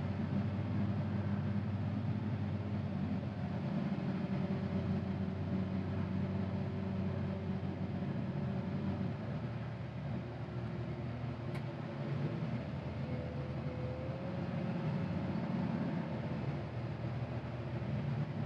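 CAT 950GC wheel loader's diesel engine running steadily under load as it pushes snow with a Metal Pless plow. A single faint click a little past halfway.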